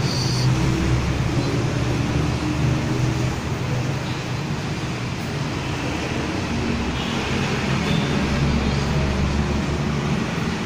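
Street traffic: motorcycles and cars passing, a steady mix of engine hum and road noise, with a deeper rumble from a passing vehicle about eight seconds in.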